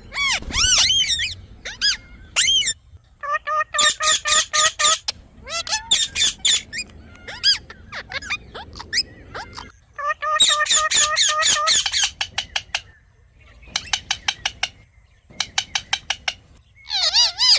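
Parrot calling: loud, harsh squawks in quick runs of several calls a second, with a stretch of rapid, sharp clicking notes about three quarters of the way in.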